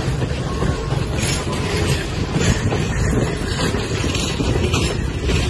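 Railroad passenger cars and a caboose rolling past, their wheels making a steady rumble on the rails.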